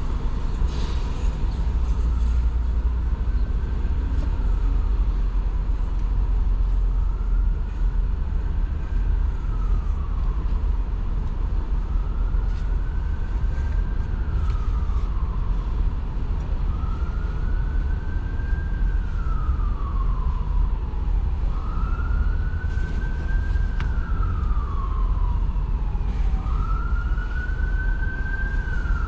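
Emergency vehicle siren in a slow wail, rising and then falling about every five seconds and growing louder, over the low rumble of city traffic.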